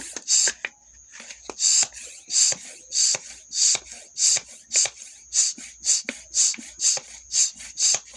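Hand bicycle pump being worked, each stroke a short hissing puff of air, about two a second. There is a brief pause in the strokes about a second in.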